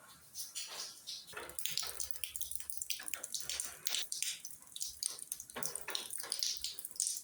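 Rain dripping and splashing onto wet ground, an irregular run of separate drops several times a second.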